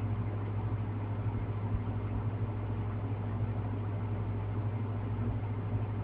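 Steady low hum with a faint even hiss and no music: the sound he tried to play does not come through.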